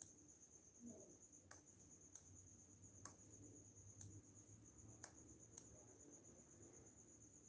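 Faint, steady high-pitched trill of a cricket, pulsing evenly without a break, with a few soft clicks scattered through it.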